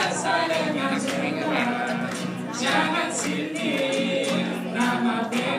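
A choir singing, with voices in several parts: held low notes under a moving higher melody.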